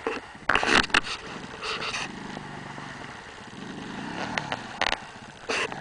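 ATV engine revving and labouring as the quad churns through a deep, water-filled mud rut, its pitch rising and falling. Several short, loud bursts of noise cut in over it, the loudest about half a second in.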